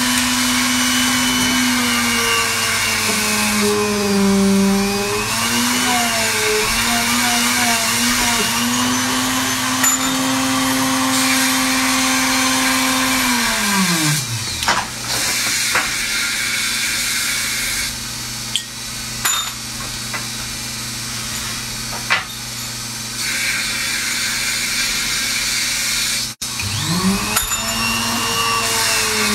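Small electric motor of a benchtop bead-drilling machine running, its pitch sagging and recovering under load as the bit bores into a wooden bead. About halfway through it winds down and stops, a few sharp clicks follow, and near the end it spins up again.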